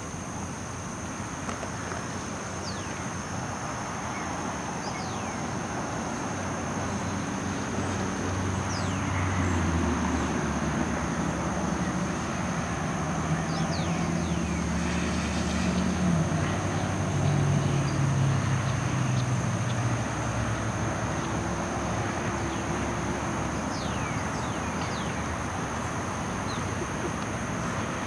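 A motor vehicle going by: a low engine drone swells for several seconds in the middle, shifting in pitch, then fades. Short falling bird chirps come now and then over a steady outdoor background.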